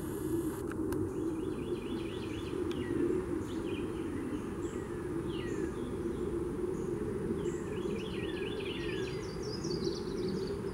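Songbirds singing over a steady low rumble: a trill of quick repeated notes about a second in and again near the end, with single down-slurred whistles between.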